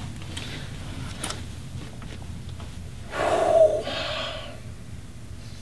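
A person's loud, breathy gasp about three seconds in, lasting about a second and a half, over a low steady hum.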